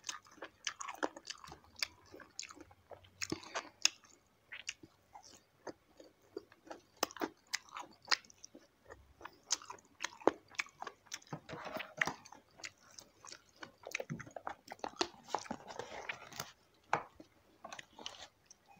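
Eating crispy deep-fried chicken feet close to the microphone: irregular crisp crunches and bites, with chewing between them.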